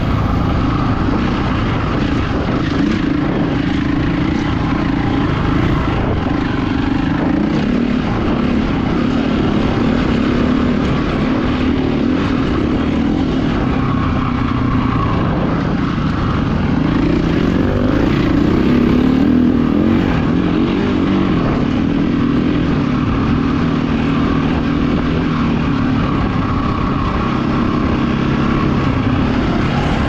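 Enduro motorcycle engine running while ridden off-road, the engine note rising and falling with the throttle and climbing highest a little past halfway.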